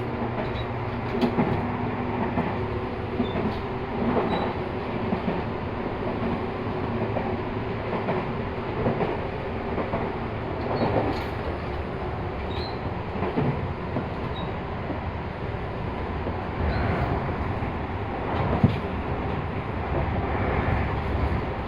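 Cabin noise inside a Tobu 50050 series electric commuter train under way: a continuous rumble of wheels on rail with scattered knocks and clanks, the sharpest about 19 seconds in.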